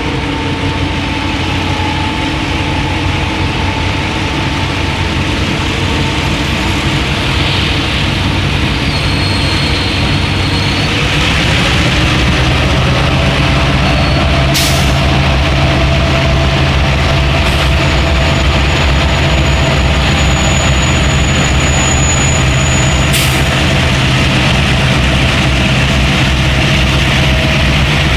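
EMD G26MC-2U diesel-electric locomotive's engine running while it charges its air compressor; it revs up about eleven seconds in and holds the higher, louder speed. A few short sharp hisses or clicks break through near the middle.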